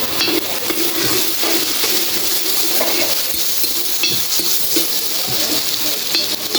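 Food sizzling in a large pot over a wood-fired chulha: a steady loud hiss with scattered clinks and scrapes of utensils against the pot.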